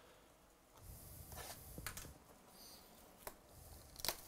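Faint handling noise from a cardboard trading-card box being picked up and turned in the hands: a soft rustle, then a few sharp clicks and taps.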